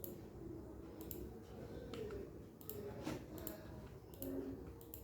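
Faint computer mouse and keyboard clicks, about ten in all, some single and some in quick pairs, as objects are selected and deleted on the computer.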